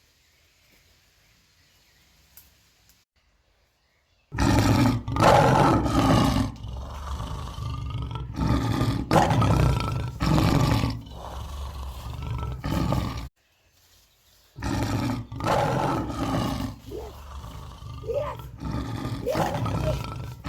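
Lion roaring loudly in long, deep calls. It starts suddenly about four seconds in after near silence and breaks off briefly about two-thirds of the way through.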